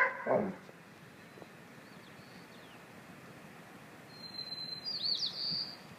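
A songbird singing high, clear whistled notes: a few faint short notes about two seconds in, then a louder phrase near the end with a held whistle and quick looping notes.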